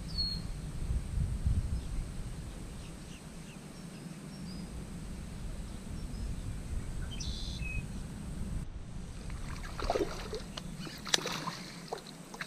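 Steady low rumble of wind on the microphone with a few short high bird chirps. In the last few seconds come scattered clicks and rattles from fishing tackle being handled.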